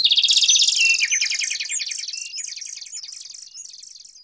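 Rapid, high-pitched bird-like chirping trill, many quick chirps a second. It starts suddenly and loud, fades away over about four seconds and then cuts off abruptly, as a sound effect laid over a title card.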